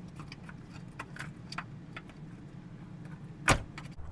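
Plastic NOx and O2 sensor wiring connectors being handled and unclipped from their plastic bracket: scattered small clicks and rattles, with one sharper snap about three and a half seconds in.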